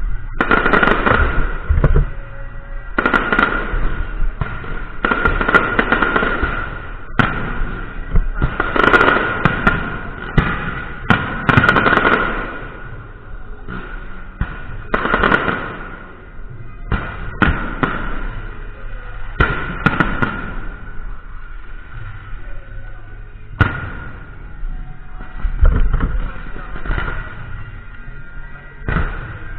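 Electronic fireworks going off in a series of dense firecracker-like crackling bursts, each a second to a few seconds long with short lulls between, over a steady high tone.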